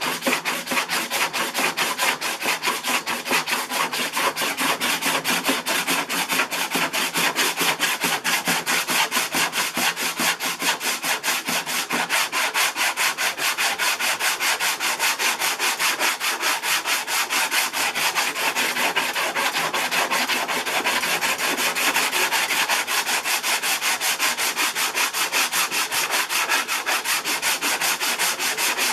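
Hand block sanding: a sanding block with sandpaper rubbed back and forth over cured EverCoat body filler on a model aircraft cowl, in fast, even strokes without a break. This is the filler being sanded down level and feathered in.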